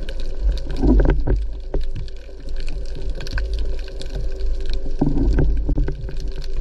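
Underwater ambience picked up by an action camera in its waterproof housing: a muffled low rumble with scattered crackles and a faint steady hum, swelling louder about a second in and again near five seconds in.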